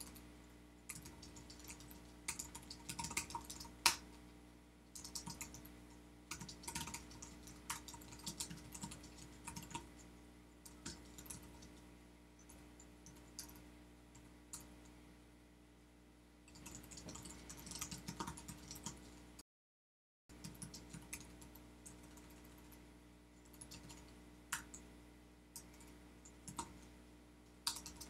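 Typing on a computer keyboard: bursts of rapid key clicks with short pauses between them. About two-thirds of the way through, the sound drops out completely for about a second.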